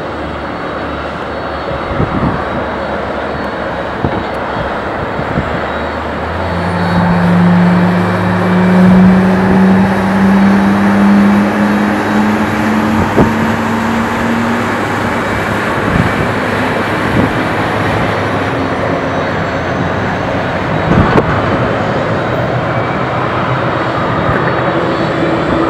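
Boeing 767-300 jet engine spooling up: a low hum that comes in about six seconds in and slowly rises in pitch for several seconds, over a steady rush of engine noise and wind on the microphone.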